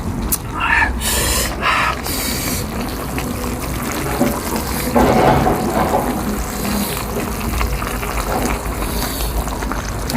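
Liquid sounds from the hotpot over a steady low rumble, with a few short, louder noisy bursts in the first three seconds.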